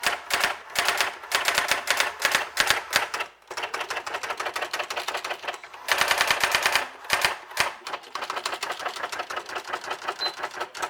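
Brother GX-6750 electric daisy-wheel typewriter printing: rapid runs of sharp strikes in bursts with short pauses, and a brief high beep near the end.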